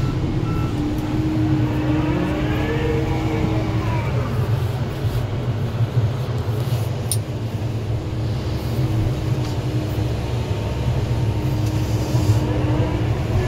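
Excavator's diesel engine running steadily under working load, its hydraulic whine rising and falling in pitch as the arm and bucket move, a few seconds in and again near the end. A backup alarm beeps twice at the start.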